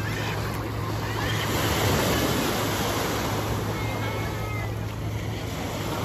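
Sea waves surging and washing onto the beach in a steady wash of surf, with a low steady hum underneath.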